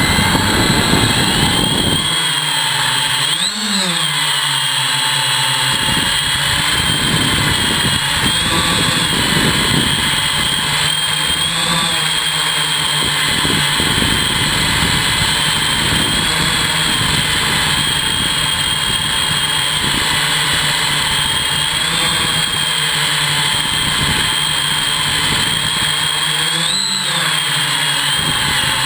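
Monster Hex hexacopter's electric motors and propellers running in flight, a steady whine that briefly rises and falls in pitch as the motors speed up, about three seconds in and again near the end.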